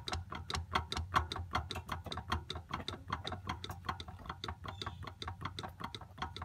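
Worn shifter U-joint and linkage of a 2002 Subaru WRX clicking and knocking in a rapid, uneven run as the shifter is worked up and down, over a low hum. The play comes from a worn-out U-joint and bushings.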